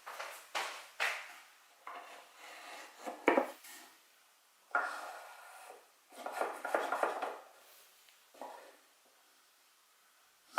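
Irregular scraping, rubbing and clicking of wood and small hand tools as a drawer housing is screwed into a wooden case by hand, with one sharp knock about three seconds in.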